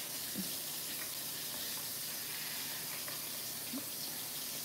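Steady background hiss of room tone, with two faint brief sounds, one about half a second in and one near the end.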